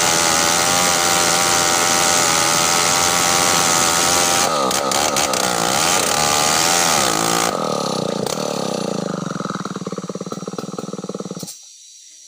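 Large two-stroke chainsaw running at full throttle, its pitch wavering about halfway through. It then drops to a slow, pulsing idle and cuts off about a second before the end.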